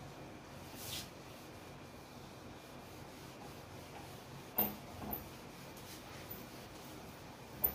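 Whiteboard duster rubbing across a whiteboard, wiping off marker writing, faint and steady, with two short louder sounds a little past halfway.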